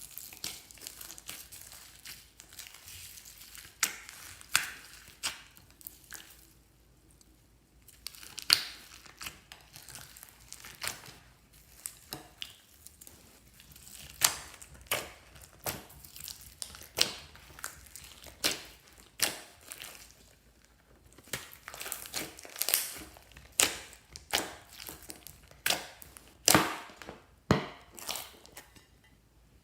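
Glossy slime being squished and stretched by hand: sticky crackling with sharp pops and clicks of trapped air, irregular, sometimes several a second, with a few short quieter pauses.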